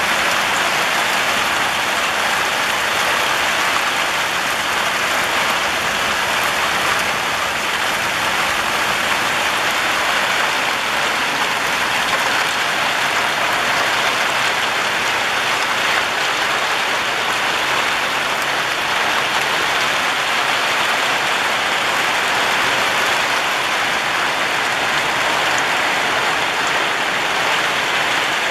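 Heavy rain falling steadily on tiled rooftops, a dense, even hiss.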